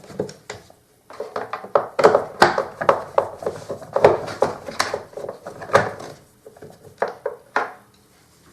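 Parts of a Samsung SC4520 vacuum cleaner being handled as it is taken apart: a dense run of clicks, knocks and light clatter, thinning out near the end.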